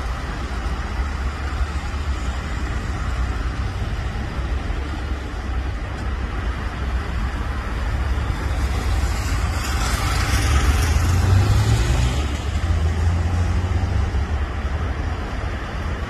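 Road traffic: cars driving round a roundabout make a steady low rumble of engines and tyres. It swells as one vehicle passes closer about ten seconds in, then eases off again.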